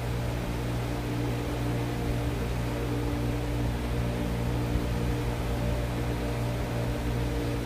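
Steady hum with a hiss over it, like a fan or an electrical appliance running, unchanging throughout.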